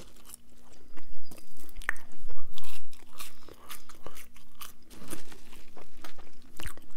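Close-miked chewing of McDonald's fast food: irregular wet crunches and mouth sounds, with the loudest crunching about one to three seconds in.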